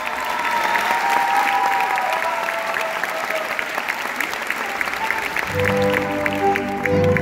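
Audience applauding, with many separate claps. About five and a half seconds in, music with sustained low notes comes in under the clapping.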